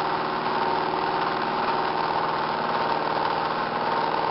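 Bedini-style four-pole, eight-transistor pulse motor running steadily while driving its generator coil add-on: a continuous even hum made of several steady tones, with one clear tone standing out above the rest.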